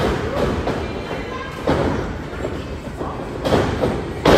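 Wrestlers' bodies slamming onto the ring mat: several heavy thuds, the loudest near the end, with crowd voices between them.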